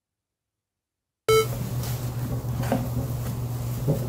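Dead silence, then about a second in a short electronic beep as a new recording begins, followed by a steady low hum. Near the end there is faint rustling of a wipe on a glass bottle.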